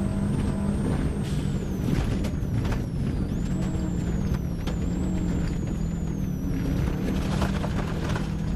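Subaru Impreza GT rally car's turbocharged flat-four engine heard from inside the cabin at speed, the engine note dipping as the car slows, with gravel clattering against the underbody throughout.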